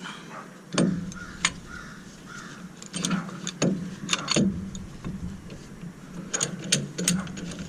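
Scattered metallic clinks and knocks as a C-clamp is set against a brake caliper to push the piston back, over a steady low hum.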